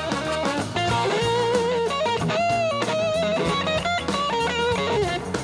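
Live rock band playing an instrumental passage: an electric guitar lead with bending, wavering notes over drum kit, bass and the rest of the band.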